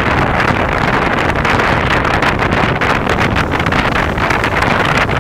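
Steady rushing noise of wind buffeting the microphone, with no distinct firework bang standing out.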